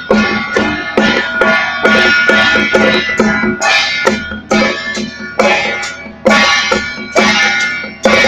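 Traditional Taiwanese temple-procession percussion: drum, gongs and cymbals struck together in a loud, steady, driving beat of about two strikes a second, with the cymbals and gongs ringing on between strikes.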